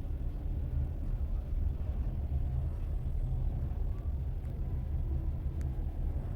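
Train wheels running on rails: a steady low rumble with a couple of faint clicks about four and five and a half seconds in.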